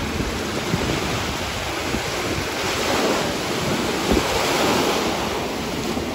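Small ocean waves breaking and washing through the shallows, swelling about three seconds in and again near five seconds, with wind buffeting the microphone.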